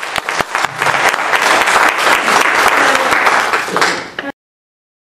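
Audience applauding: dense clapping that thins out just before it cuts off abruptly a little over four seconds in.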